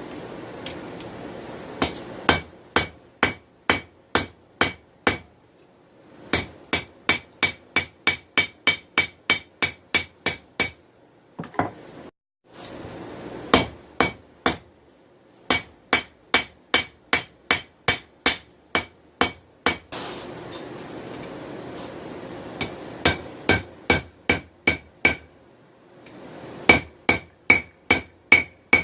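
Hand hammer striking hot 416 stainless steel on an anvil, forging a small bird beak knife blade. The blows come about two to three a second, each with a clear ring, in several runs broken by short pauses.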